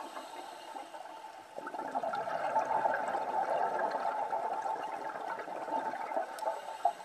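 Underwater ambience: steady rushing, gurgling water noise with scattered faint crackles, a little quieter for the first second and a half and then fuller.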